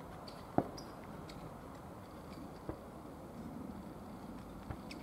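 Distant fireworks shells bursting: three sharp bangs a couple of seconds apart, the first the loudest, over a low steady background.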